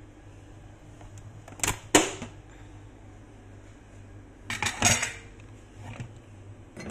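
Kitchen clatter: a handful of knocks and clinks as a blender jar is handled and a metal mesh strainer is set over a mug, loudest about two seconds in and again about five seconds in, over a faint steady low hum.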